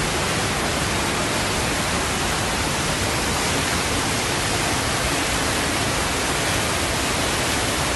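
Muddy floodwater rushing in a torrent down a street, heard as a steady, even rush of noise.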